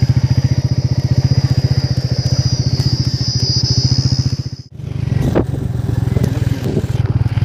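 Motorcycle engine running with a rapid, even thumping exhaust pulse as the bike rides along. A steady high-pitched whine sits over it until the sound drops out for a moment about two-thirds of the way through, after which the engine carries on with a few knocks and rattles.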